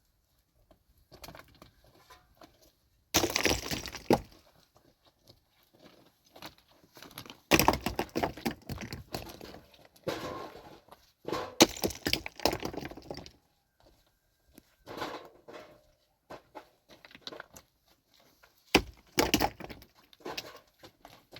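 Irregular bursts of cracking and crunching, each lasting a second or two, with quieter pauses between, as something is being broken apart.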